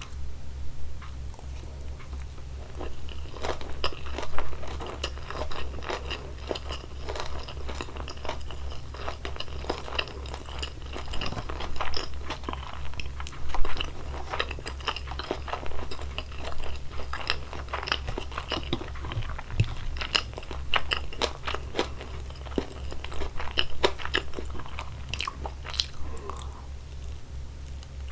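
Close-miked chewing and biting of salmon sushi, a dense, irregular run of small clicks and mouth sounds, over a steady low hum.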